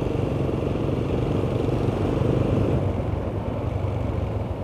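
Motorcycle engine running while riding at road speed, with a steady low hum and rushing road noise. The sound gets a little quieter about three seconds in.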